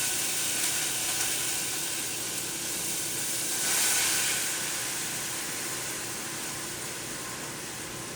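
Water hissing and sizzling in a hot frying pan as it heats toward the boil. It swells briefly about four seconds in, then slowly dies down.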